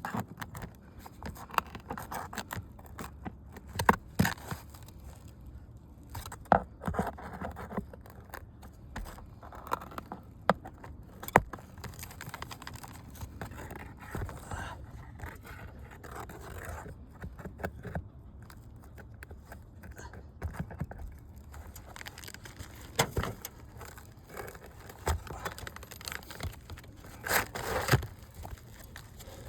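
Irregular scraping, knocking and tearing of asphalt roof shingles as a damaged shingle is worked loose from its nails and pulled out; the old shingles are brittle and delaminating, so they rip as they are lifted.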